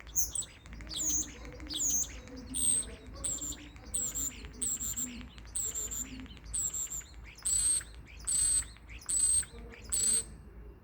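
Common starling calling: a run of sharp, high calls repeated roughly every two-thirds of a second. The first ones slide down in pitch, and the later ones are harsher with a steady whistle. They stop shortly before the end.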